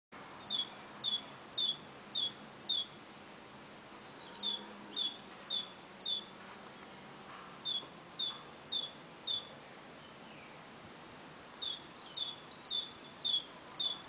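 A songbird singing the same song over and over: four bursts, each about five quick repeats of a two-note phrase, a high note followed by a lower one, with pauses of a second or so between bursts.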